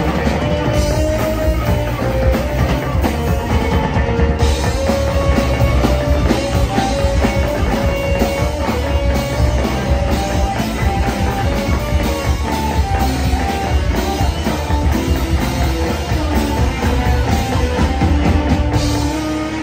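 Live rock band playing loudly: two electric guitars, electric bass and drum kit, with a guitar line of held notes on top. The cymbals grow brighter about four seconds in and drop back near the end.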